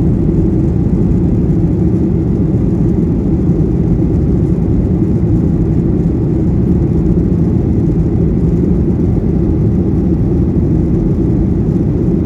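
Airliner cabin noise in flight: a steady, loud low rumble of the engines and rushing air, unchanging throughout.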